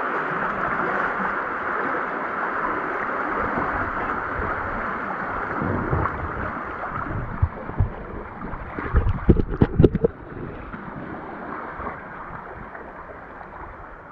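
Fast creek water rushing and rippling close around a floating tube, a steady noise. About halfway through, a run of low thumps and splashes breaks in for a few seconds.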